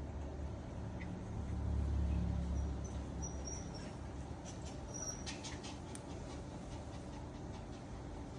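Faint high squeaks of a newborn puppy, a few short thin cries around the middle, with a low rumble about two seconds in and scattered light clicks afterwards.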